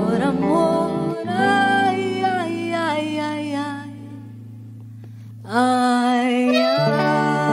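Live band playing a slow song: held bass notes under a wavering melody line, with guitar. About four seconds in the music drops to a quiet held note, then comes back in full about a second and a half later.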